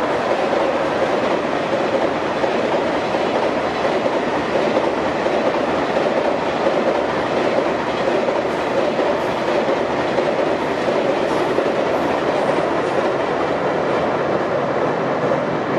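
Container wagons of a long freight train running over a steel girder railway bridge: a steady, continuous noise of wheels on rail that holds at the same level as the train passes.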